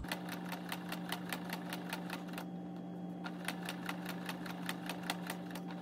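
Electric sewing machine stitching slowly through fabric and bias tape: the needle mechanism clicks about five times a second over a steady motor hum, and the clicking breaks off briefly about two and a half seconds in.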